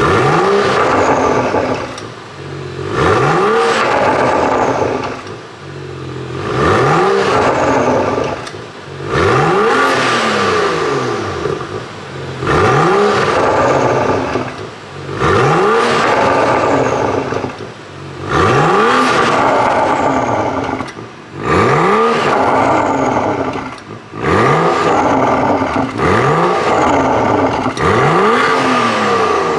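BMW 435i's N55 turbocharged straight-six revved over and over while standing still, through an Akrapovic Evolution stainless exhaust and HJS downpipe: the note sweeps up and falls back about every two seconds, settling briefly toward idle between revs.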